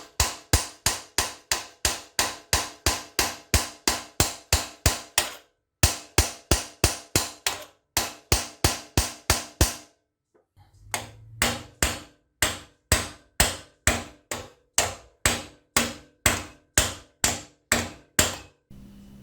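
Hammer tapping on a stuck water pump to break it free of the engine block: sharp, ringing metallic strikes about three a second, in three runs with two short pauses.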